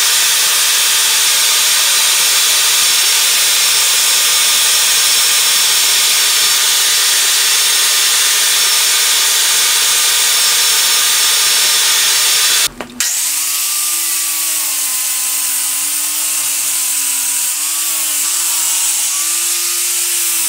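A band saw cutting a black plastic sheet, a steady whirring hiss, for about the first thirteen seconds. After a brief break, an angle grinder with a flap disc grinds a chamfer onto the sharp edges of a steel ram, its motor whine wavering in pitch as it bears on the metal.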